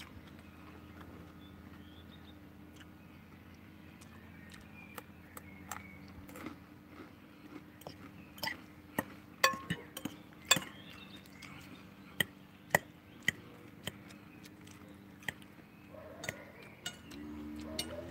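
Metal forks clinking and scraping against a glass salad bowl and a plate while eating. The sharp clinks come irregularly, most often and loudest in the middle stretch.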